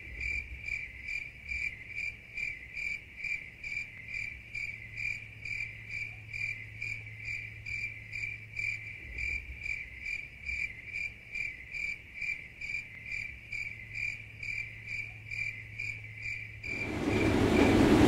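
A cricket chirping in a steady, even rhythm of about three chirps a second, over a low steady hum. Both cut off shortly before the end.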